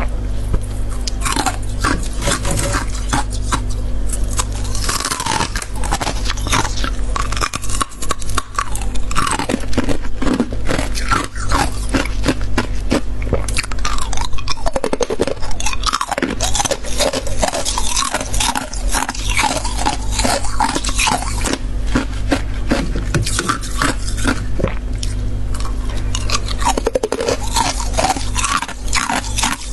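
A person biting and chewing ice: rapid, dense crunching with some scraping.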